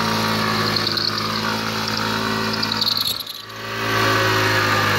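Scooter engine held at high revs while its rear tyre spins on a plywood board in a burnout, with tyre squeal. The engine note dips briefly just past three seconds, then comes back up.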